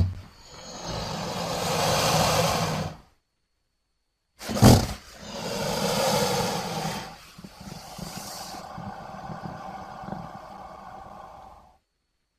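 Crocodilian vocalisations: two long, rough calls with about a second of silence between them. The second opens with a short loud burst and runs about seven seconds, growing quieter partway through.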